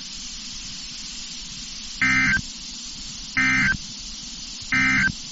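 Three short bursts of NOAA Weather Radio SAME data tones, a warbling digital buzz about a second and a half apart: the end-of-message code that closes the EAS Fire Warning. Steady radio hiss runs under and between them.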